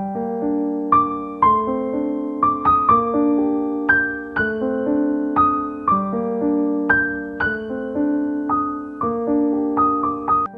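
Background piano music: a gentle melody of struck notes, a new note every half second or so, over sustained chords.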